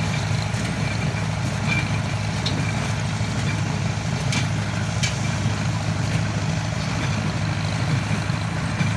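Farmall 350 tractor engine running steadily at a constant speed, with two sharp clicks about halfway through.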